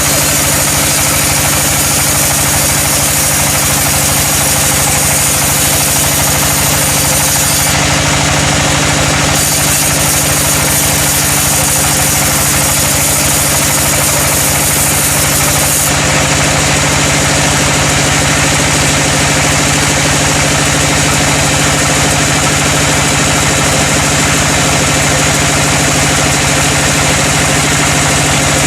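Sawmill machinery running steadily with a constant engine or motor drone and a dense high hiss, the treble shifting abruptly a few times.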